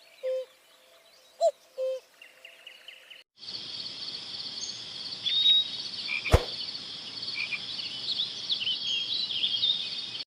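Animal calls. First come short low hooting notes, three within the first two seconds, with a few higher chirps. After a sudden cut comes a steady high-pitched chorus of chirping calls, with one sharp click partway through.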